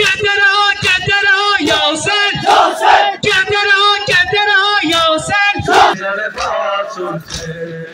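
A large crowd of men chanting a mourning lament (noha) together. Sharp slaps of palms on chests (matam) mark an even beat about every two-thirds of a second. The chanting thins out near the end.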